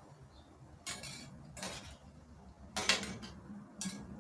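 Four short handling noises, each a brief rustle or clatter, about a second apart.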